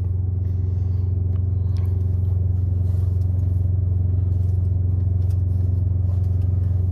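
Steady low drone of a parked semi truck's diesel engine idling, heard inside the sleeper cab. A few faint clicks and rustles sit on top of it.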